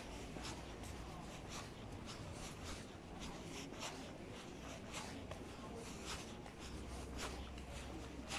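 Footsteps of a person walking on a paved pavement, about two steps a second, over a low steady rumble.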